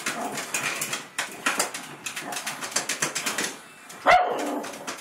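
Pug barking at another dog, a rapid run of short sharp barks followed by one louder, longer bark about four seconds in.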